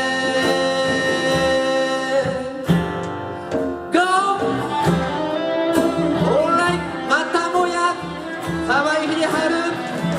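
Live band playing a folk ballad with guitar accompaniment: a held sung note at the end of the chorus breaks off about two and a half seconds in, then an instrumental melody line with sliding, bending notes carries on.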